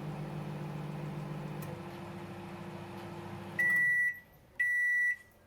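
LG convection microwave oven running with a steady hum, which stops about three and a half seconds in and gives way to two long, single-pitched beeps about a second apart: the end-of-cycle signal that the timed cooking has finished.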